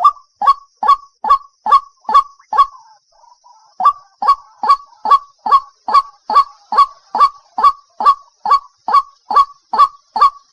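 Waterhen calling: a loud, clipped call repeated about two to three times a second, breaking briefly into softer notes around three seconds in before resuming. A faint steady high hiss runs underneath.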